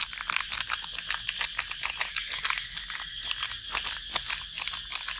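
Whole eels being mixed by hand with spices in a basin: a quick, irregular run of wet squishing and clicking that stops near the end. Insects trill steadily behind.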